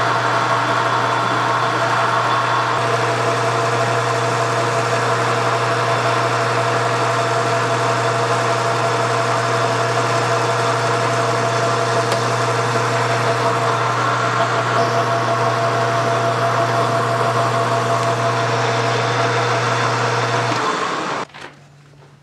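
Metal lathe running under power, turning a light cut on a metal shaft: a steady hum with a higher whine over it. The lathe shuts off near the end.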